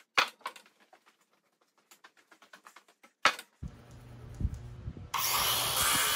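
A heavy wooden beam knocks down onto a stack of lumber, with lighter handling knocks after it. About five seconds in, a Ridgid circular saw starts cutting into the beam, a loud steady noise that keeps going.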